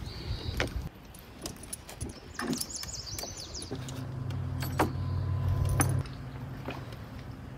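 Light knocks and clicks in a canoe, with a brief metallic jingle of dog-collar tags about two and a half seconds in. From about four seconds a low steady hum comes in, then drops sharply a little after six seconds and carries on fainter.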